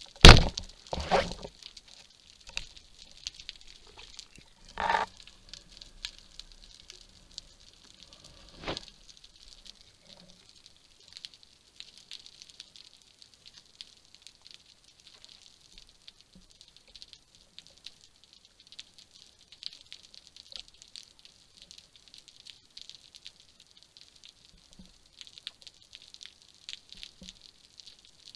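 Underwater ambience: a steady fine crackling of snapping shrimp, heard through the camera housing, with four louder knocks in the first nine seconds, the first one the loudest.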